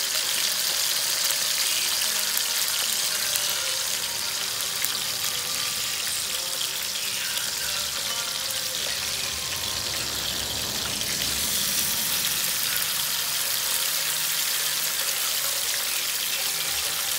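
Chicken wing pieces and pork slices with garlic frying in hot oil in a pan: a steady, high sizzling hiss.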